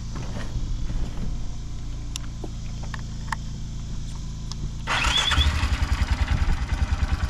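A small vehicle engine idling with a low hum, then revving up suddenly about five seconds in and running louder with a quick, even pulse.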